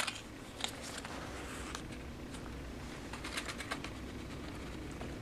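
Foil tuna pouch crinkling as it is squeezed and emptied, heard as scattered faint crackles and ticks, a cluster of them about three seconds in, over a steady low hum.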